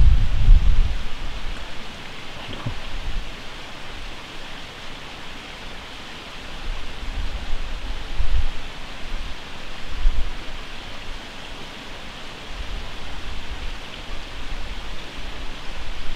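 Steady outdoor hiss with low rumbles of wind buffeting the microphone, strongest at the start and again about eight and ten seconds in.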